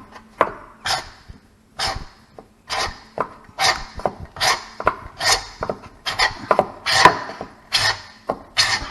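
Hand scraper drawn over sanded hardwood in repeated short strokes, about one a second, scraping off leftover finish that a water wipe has shown up.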